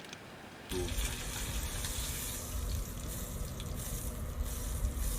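Strong wind buffeting the microphone: a rumbling rush with a hiss over it, starting abruptly about a second in and cutting off suddenly at the end.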